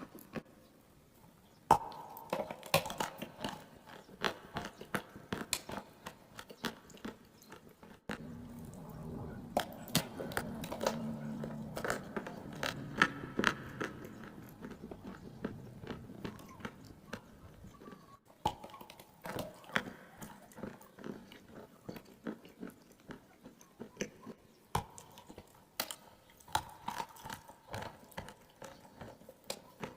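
Close-miked chewing and crunching of clay, a dense run of sharp crunches that starts after a short pause near the beginning.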